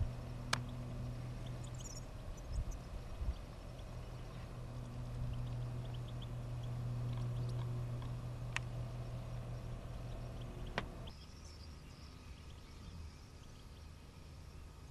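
Faint high twittering of a flock of European goldfinches over a steady low rumble, with three sharp clicks. The rumble drops off about two-thirds of the way through.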